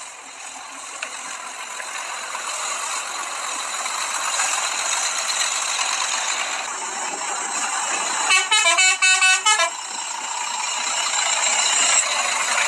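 Tour coach horn sounding a rapid run of short blasts at changing pitches, lasting about a second and a half, some eight seconds in. Under it runs the steady rushing noise of the coaches, slowly growing louder.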